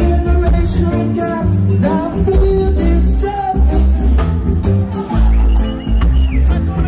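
Live reggae band playing loudly, with a heavy bass line, drums, guitar and a singer.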